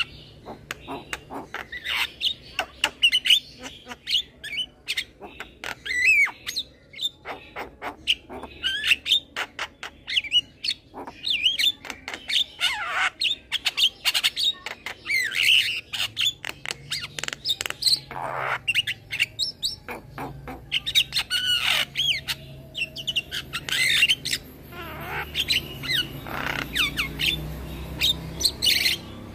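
A young male Javan myna singing: a busy run of sharp clicking notes mixed with short whistled and gliding notes, almost without a pause.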